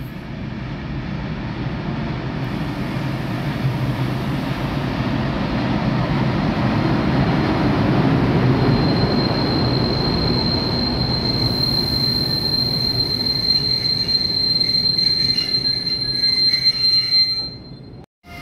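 RailAdventure class 139 electric locomotive passing, its rolling rumble building to a peak about eight seconds in. From about nine seconds in a steady high-pitched wheel squeal sounds over it, until the sound cuts off suddenly near the end.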